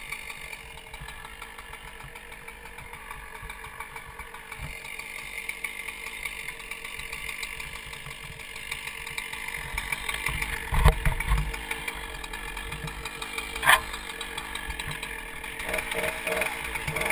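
Two-stroke chainsaw idling steadily. Partway through there is a loud low thump lasting about a second, and a sharp knock a few seconds later.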